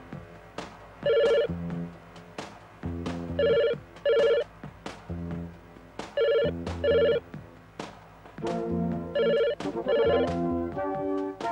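Electronic telephone ringing in a double-ring pattern, two short rings repeating about every two and a half seconds, over music with a steady beat and bass line.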